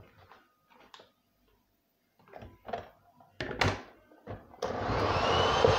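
A few light knocks and clatter as a sieve and utensils are handled, then an electric hand mixer switches on about four and a half seconds in and runs steadily with a high whine, beating batter in a plastic jug.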